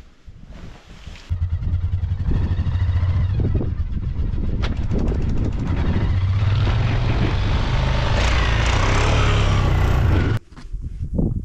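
An engine running steadily and loudly close by, starting abruptly about a second in and cutting off suddenly near the end.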